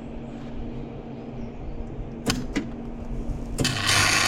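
MIG welder arc striking: two short crackles, then about half a second of loud spitting crackle near the end, over a steady low hum. The welding wire is running without shielding gas, which has not yet been turned on.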